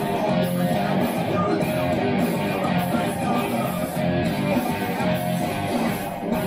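Electric guitar played through an amplifier, a continuous stretch of rock playing.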